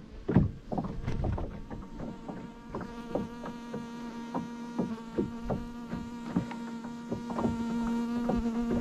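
A small boat's motor humming steadily at one pitch, getting louder toward the end, with irregular light knocks from the boat.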